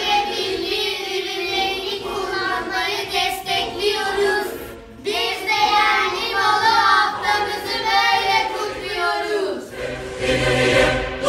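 A small group of children singing together without accompaniment, with a short break about halfway through. Near the end a recorded music track with choral singing comes in.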